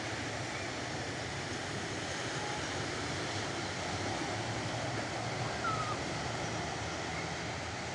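Ocean surf on a sandy beach: a steady rush of breaking waves.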